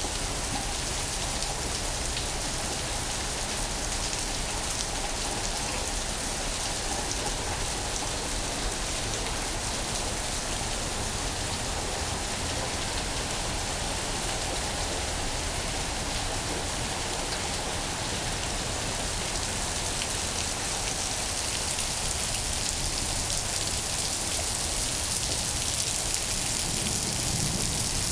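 Rain pouring down steadily, an even hiss of drops hitting surfaces, growing slightly louder near the end.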